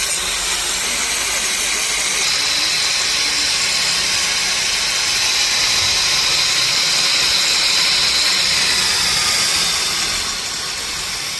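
Steady loud hissing from welding work, growing stronger about two seconds in and easing off near the end, with an engine running underneath.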